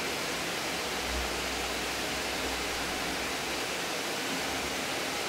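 Steady, even rushing hiss of background noise, with a low rumble from about one to four seconds in.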